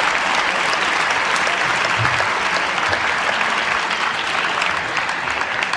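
Spectators in an arena applauding a point just won in a table tennis match, a dense patter of clapping that starts to die down near the end.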